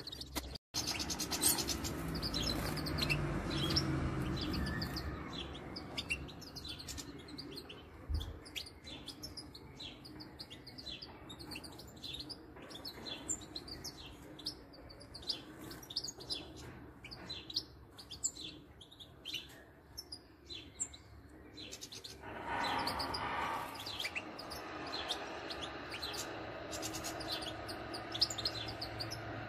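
Small cage birds chirping: short, high calls, several a second, going on throughout. For about a second and a half in the last quarter a louder noise rises over them.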